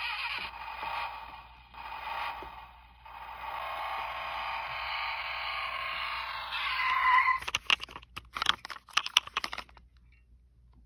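Road Rippers Mad Machines Engine Blaster toy car playing its electronic engine sound effect through its small speaker: a few short revs, then a longer run that rises in pitch near the end. After it stops, a run of plastic clicks and knocks as the toy is handled and turned over.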